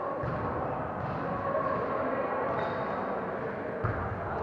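Echoing gym-hall noise of an indoor volleyball game, with one sharp volleyball hit near the end.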